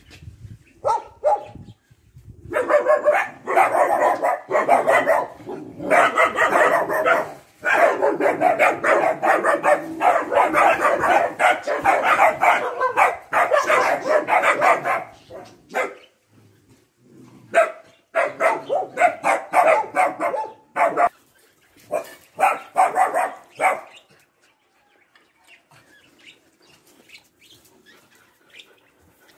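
Dogs barking in fast, overlapping volleys that run for about twelve seconds, then in two shorter spells, then stop near the end, leaving only faint ticks.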